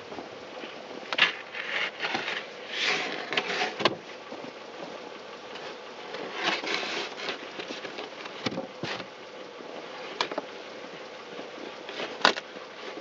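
Boots crunching and scuffing in packed snow, with scraping and several sharp knocks, as a person works at a stuck car's front wheel, over a faint steady hum.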